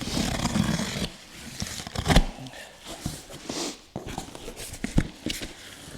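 A large cardboard shipping box being opened by hand: tape tearing and cardboard and packaging rustling, with scattered clicks and a sharp knock about two seconds in.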